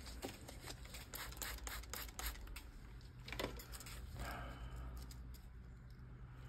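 Faint clicks and rustles of gloved hands handling a silicone resin mold on a silicone work mat, over a steady low hum.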